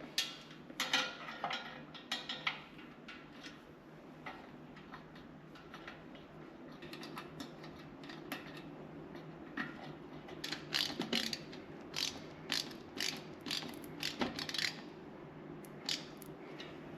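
Irregular metallic clicks and clatter from hand-tool work, coming in clusters over a steady low hum.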